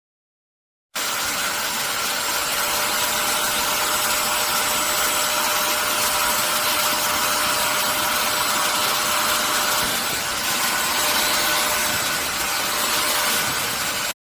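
Portable spot cleaner's suction motor running steadily: a loud, even whoosh with a thin whine over it. It comes in abruptly about a second in and cuts off abruptly just before the end.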